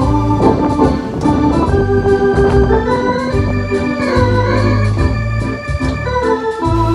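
Organ playing a slow tune, with held chords over sustained bass notes and a melody line; one melody note wavers in pitch about four seconds in.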